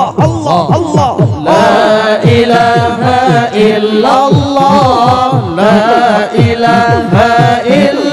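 Zikir saman, Islamic devotional chanting: a solo male voice sings a long, ornamented melody over a group of male voices holding steady notes, with a fast low beat pulsing underneath.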